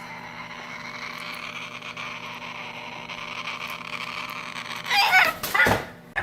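A parrot squawking loudly in two harsh, wavering calls about five seconds in, over a steady background hiss, with a short sharp call at the very end.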